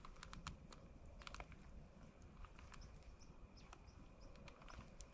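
Faint, irregular small clicks and crackles over a low background rumble.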